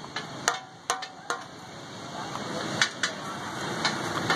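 Several sharp, irregularly spaced clacks of a wooden rolling pin and hands working paratha dough on a steel counter, over a steady background hiss that grows louder about two seconds in.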